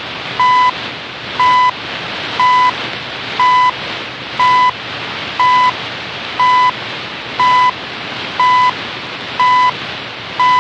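CHU Canada shortwave time signal heard through a portable shortwave radio: a 1000 Hz beep about a third of a second long, once every second, marking the seconds. The beeps sit over steady radio hiss.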